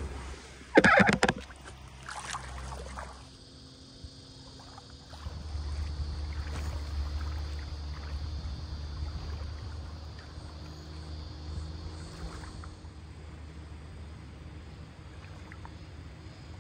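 A sharp loud noise about a second in, then a steady low rumble of wind on the microphone that slowly fades.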